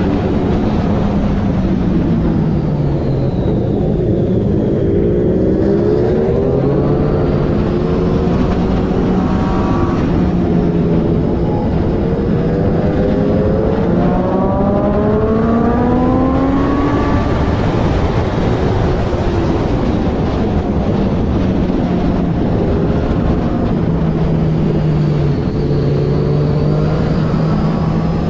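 Triumph Daytona 675R's three-cylinder engine at racing speed, its pitch climbing and falling again and again as it accelerates, shifts and slows, over a steady rush of noise.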